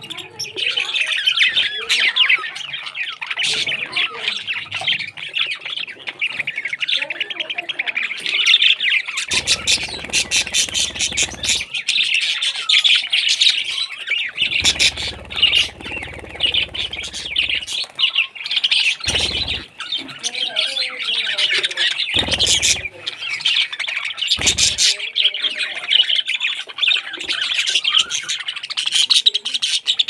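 A flock of budgerigars chattering, with dense, continuous high chirps and squawks. A few bursts of low noise cut in, the longest about ten and fifteen seconds in.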